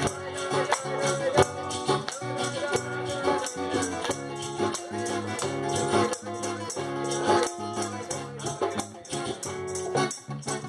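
Live acoustic guitar strummed in a steady rhythm, with singing over it and a fast, even pulse of sharp percussive strokes.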